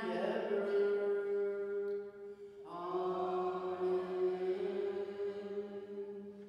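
Slow liturgical chant: long held sung notes, changing pitch once after about two and a half seconds, then fading away near the end.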